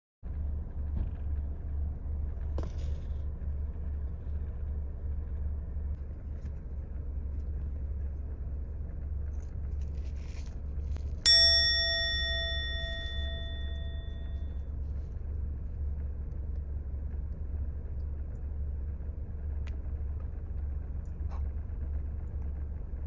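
A steady low rumble, with a single bell-like ding about halfway through that rings on for about three seconds.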